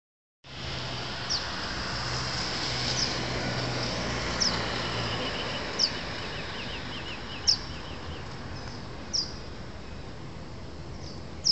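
Songbirds chirping outdoors: one repeats a short, sharp high chirp about every one and a half seconds, and another gives a quick run of notes about halfway through. Beneath them is a steady background hum that fades out around the middle.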